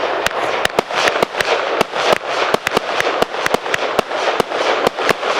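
Celtic Fireworks Tardis 2 firework barrage firing: sharp bangs come about five a second at an uneven pace over a continuous dense crackle.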